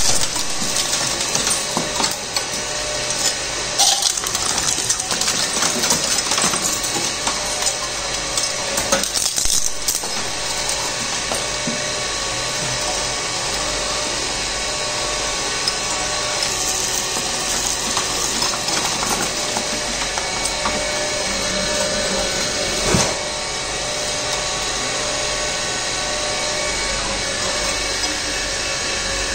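Twin-shaft e-waste shredder running, its toothed cutter discs grinding and cracking electronic scrap. Irregular cracks and clatter come through in the first ten seconds or so, then the running grind steadies, with one sharp crack about 23 seconds in.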